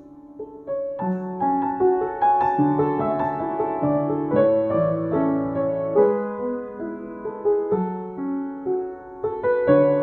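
Yamaha JX113T upright acoustic piano being played after a fresh string tuning as a sound test: a chord dies away at the start, then a flowing melody over chords begins about half a second in, notes struck and left to ring.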